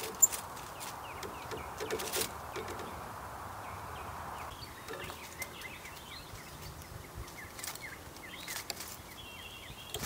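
Outdoor ambience: a steady hiss that eases off about halfway, scattered sharp clicks and taps, and faint short bird chirps in the second half.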